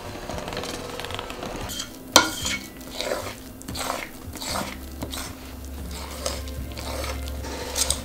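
Electric hand mixer running in a glass bowl of thick cream cheese and peanut butter filling, stopping about two seconds in with one sharp knock against the bowl. Then a run of short scraping and clinking strokes in the glass bowl, about two a second.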